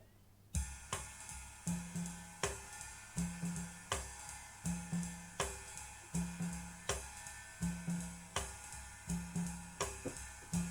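Music played back through JBL 4307 studio monitors: a jazz-style drum intro with cymbal and kick on a steady beat about every three-quarters of a second, over a walking bass, starting about half a second in.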